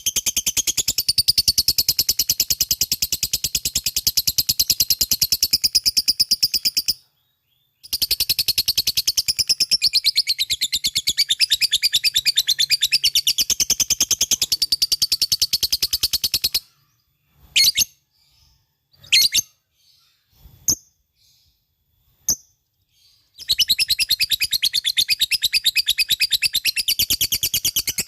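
Lovebird singing ngekek: long, unbroken runs of very fast, high-pitched chirps. The run stops dead briefly about seven seconds in. Later it gives way to a few scattered single chirps for about six seconds before the fast chattering starts again.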